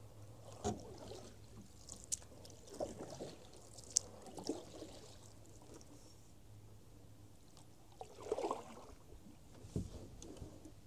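Canoe paddle strokes in the water: a few swishes and drips as the paddle dips and pulls, with some sharp clicks.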